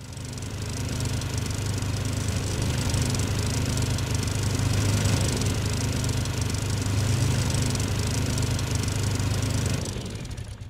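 Snowmobile engine running steadily while riding along a snowy trail, with a steady low hum and a noisy rush over it; the sound fades out near the end.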